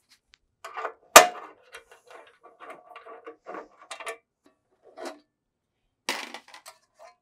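Hand screwdriver clicking and scraping against the sheet-metal side panel of an Epilog Fusion Edge laser cutter as the panel screws are backed out, with one sharp clack about a second in. Near the end, a short metallic clatter as the loosened panel comes off.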